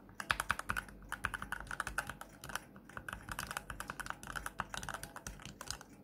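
Fingers rapidly pressing keys on a small 23-key mechanical macropad: a dense, uneven run of key clacks from the switches and keycaps, several a second.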